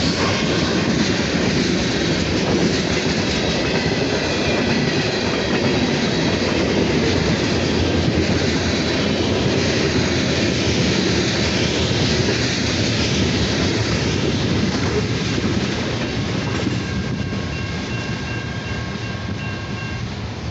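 Norfolk Southern manifest freight train's tank cars and covered hoppers rolling past close by, steel wheels running on the rails. The noise eases off after about sixteen seconds as the last cars go by, and a few thin ringing tones come up near the end.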